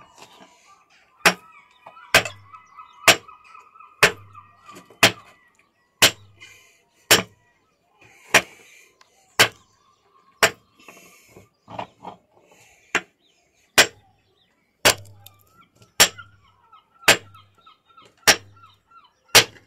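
A hammer striking a fossil-bearing stone held under a boot, about once a second, to split it open. There are some eighteen blows in a steady rhythm, each a sharp crack with a low thud.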